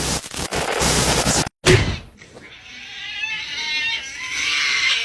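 A burst of noise, a sharp loud thump just after a second and a half, then a long wavering cat meow that bends up and down in pitch.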